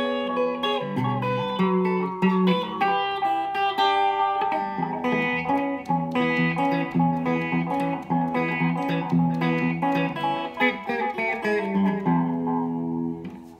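Red hollow-body electric guitar with a Bigsby vibrato, fingerpicked: low bass notes under a line of higher picked notes in a steady groove. The last note fades out near the end.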